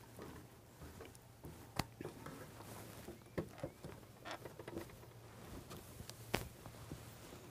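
Faint scattered knocks and clicks of a portable lectern stand being carried and set down, the sharpest about two seconds in and again near the end, over a low steady hum.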